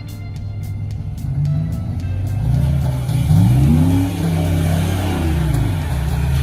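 A vehicle engine running, its revs rising about three seconds in, holding, then dropping back and starting to climb again near the end.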